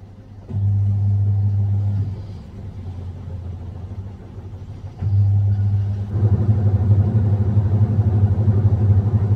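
Singer 7 kg fully automatic washing machine in its spin cycle, spin-drying the wash: a steady low motor hum that starts about half a second in, eases off around two seconds, comes back around five seconds and gets louder from six seconds as the drum spins up.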